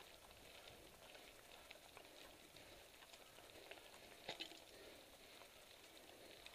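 Faint, steady crackle of mountain bike tyres rolling over a dry dirt trail strewn with fallen leaves, with scattered small ticks and a couple of sharper clicks about four seconds in.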